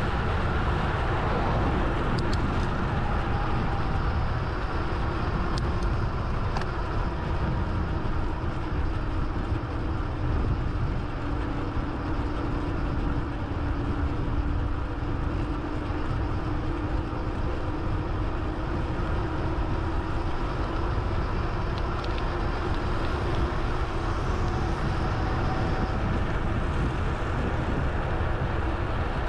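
Steady wind rush and road noise from a vehicle-mounted action camera moving along a paved road, with a faint steady hum that is strongest around the middle.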